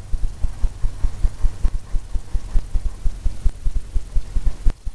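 Paintbrush tapping rapidly against a stretched canvas, giving quick, uneven low thumps that carry through the canvas, as wet oil paint is dabbed into a painted wave.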